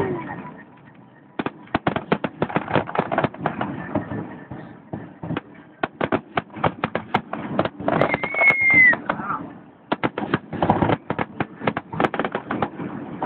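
Fireworks going off in a rapid, irregular string of bangs and crackles, easing briefly about a second in before picking up again, with a single high whistle rising and falling about eight seconds in.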